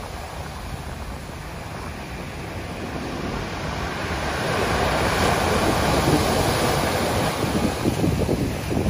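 Sea surf breaking and washing up the shore, the rush of water growing louder about halfway through as a wave breaks. Wind buffets the microphone with low gusty rumbles near the end.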